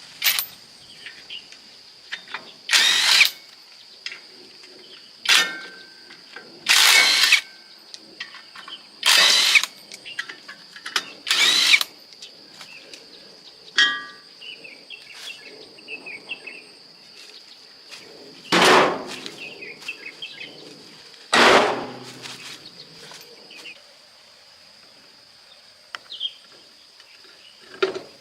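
Short bursts of hissing noise, each under a second, repeated about eight times at uneven intervals, over a faint steady high-pitched tone.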